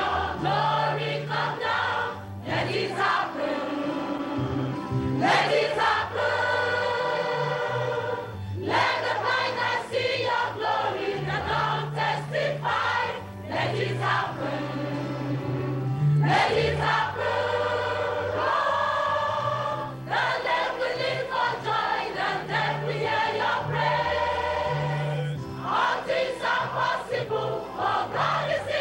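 Large choir singing a worship song in harmony, phrase by phrase, over electronic keyboard accompaniment with a stepping bass line.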